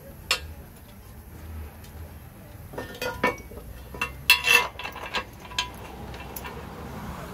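Metal clinks and knocks as a rusty steel subframe bracket and its bolt are refitted by hand over a newly replaced subframe bushing. One sharp clink right at the start, then scattered clinks from about three seconds in, loudest just past the middle.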